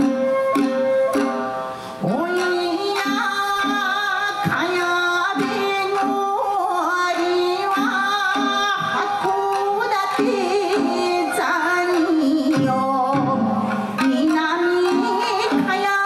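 A shamisen ensemble playing a Japanese folk tune with plucked notes in a steady rhythm, joined about two seconds in by a woman singing an ornamented, wavering min'yō melody.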